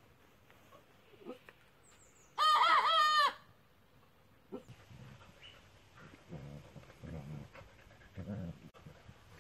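A chicken gives one loud call of a little under a second, a quick run of rising and falling notes, about two and a half seconds in. From about six seconds in come softer, low, irregular sounds of two Border Collies play-wrestling.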